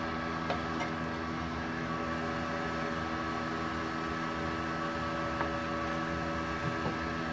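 MultiPro TIG 200A-SA inverter welder switched on and idling: a steady hum made of several even tones.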